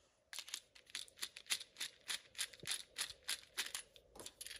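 Light, rapid clicking, about four or five clicks a second, from a screwdriver working the terminal screw of a Midnite Solar DC breaker.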